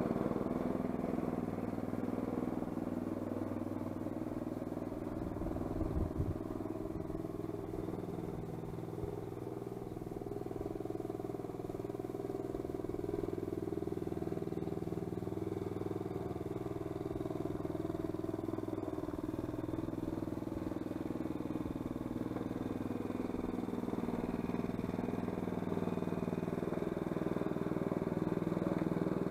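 Small Honda petrol engine of a radio-controlled lawn mower running steadily, fading as the mower drives away and growing louder again as it comes back. A brief low thump about six seconds in.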